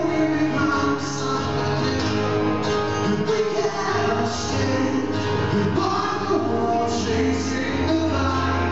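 A man singing live into a microphone while playing an acoustic guitar, heard from within the concert audience.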